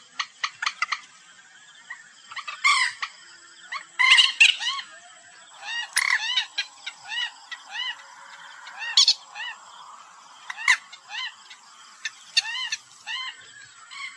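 Common moorhen calls played as a hunters' lure recording: many short, arched notes that rise and fall in pitch, repeated in irregular runs of several, with a few sharper, louder notes among them.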